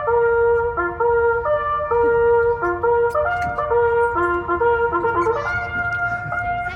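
A loud brass tune, trumpet-like, played as a melody of held notes that step up and down in pitch.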